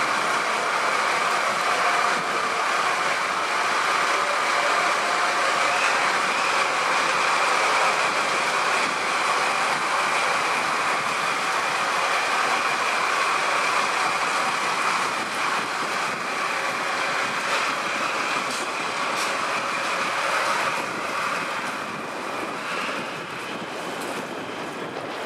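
Double-headed DD51 diesel-hydraulic locomotives running under power as they pull away, a steady engine noise that fades somewhat over the last few seconds as they move off.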